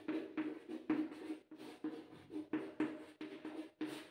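Chalk on a blackboard writing a line of Hindi text: a quick run of short scratching, tapping strokes, about four a second, each with a faint squeak.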